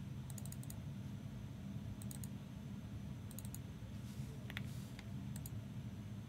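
Computer keyboard typing and clicking in short clusters of quick clicks, with pauses between them, over a steady low hum.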